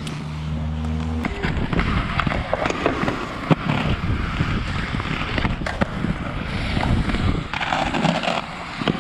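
Inline skate wheels rolling over concrete in a skatepark bowl: a continuous rolling noise dotted with short clicks and knocks. A low steady hum cuts off about a second in.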